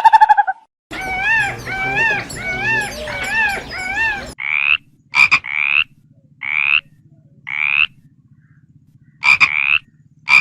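A series of short, pitched animal calls. First comes a quick run of calls that rise and fall, about one to two a second. From about four seconds in, single rising calls follow about a second apart, with a few sharp clicks between them.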